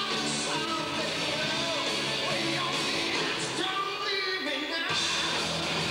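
Hard rock band playing live, taped from the audience: electric guitars, bass, drums and keyboards under a male lead vocal. About four seconds in, the low end drops out for about a second, then the full band comes back in.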